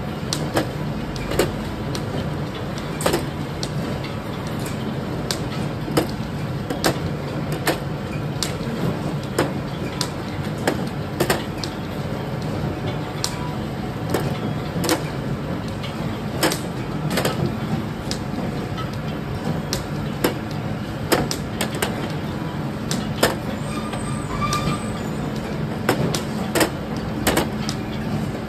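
Soap-bar chain conveyor machine running with a steady low hum. Irregular sharp clacks, roughly one a second, come as the soap bars are set down on the metal line.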